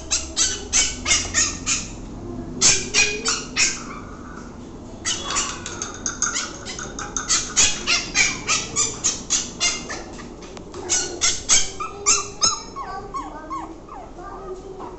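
Two-month-old pug puppy yipping in quick runs of short, high-pitched yelps, about four or five a second, with brief pauses between runs and softer wavering whines near the end. It is begging from its crate for a bowl of food set just out of reach.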